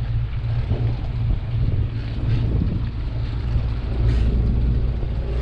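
Small passenger ferry's engine running, a steady low drone heard on board, with rushing wind and water noise and a couple of brief swishes about two and four seconds in.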